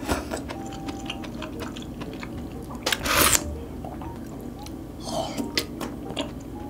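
Close-miked eating of thick loach soup from a spoon: chewing with many small clicks and mouth sounds. A loud, short slurp comes about three seconds in and a softer one about five seconds in.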